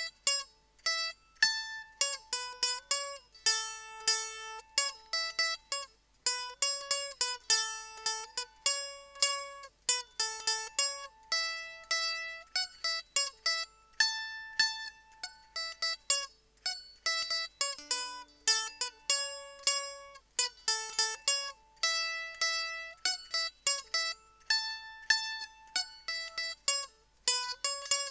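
Solo f-hole mandolin picking a lively reel melody, a quick run of single plucked notes.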